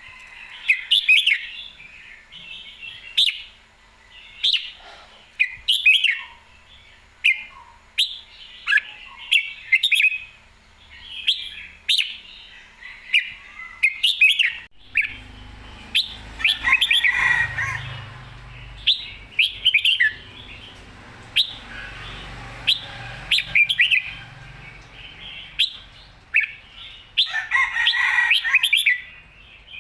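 Red-whiskered bulbul singing: short, bright phrases repeated about every second, with sharp clicks between some of them. A low rumble joins the song about halfway through.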